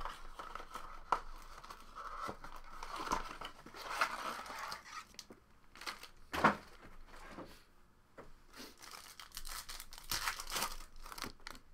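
Foil trading-card pack wrappers crinkling as they are handled and torn open, in irregular rustles with a louder one about six and a half seconds in.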